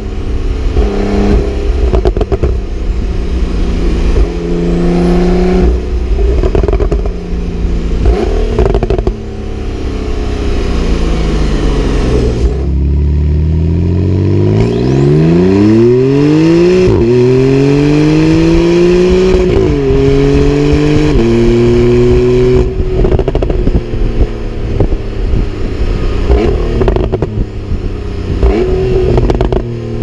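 Porsche 991.2 Carrera 4S's 3.0-litre twin-turbo flat-six, heard at the exhaust while driving. The revs wander at part throttle, then fall away about a third of the way in. The engine then pulls hard with its pitch climbing steeply and drops sharply twice as the PDK gearbox upshifts. Crackles and pops from the exhaust come through the steadier stretches.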